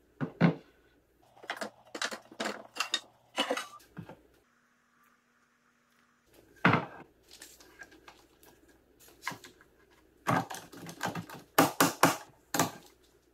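Knocks and clatter of pine boards being set down and pressed together, then quick runs of clicks near the end as trigger bar clamps are ratcheted tight across the glued-up boards.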